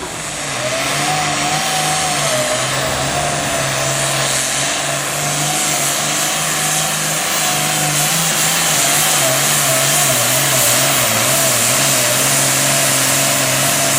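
Super Farm class pulling tractor's diesel engine running flat out under load, as in a pull down the track. It is loud and sustained with a slightly wavering pitch, and it grows louder about a second in.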